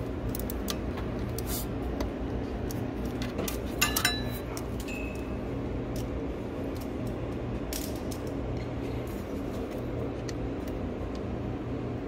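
Small metal tools and parts clinking and ticking during hand work on a car's rear differential unit, with a sharper ringing metallic clink about four seconds in, over a steady low hum.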